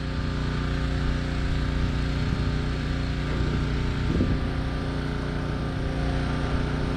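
A steady mechanical hum made of several held tones, like a motor running at constant speed.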